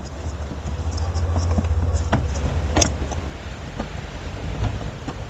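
Clicks and light knocks of small metal and plastic assembly parts (washers, bolt, plate) being handled, over a low steady rumble that eases off about three seconds in.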